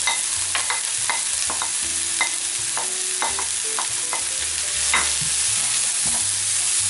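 Chopped spring onions sizzling in hot olive oil in a nonstick frying pan as they are stirred with a wooden spoon: a steady sizzle with frequent light clicks of the spoon against the pan.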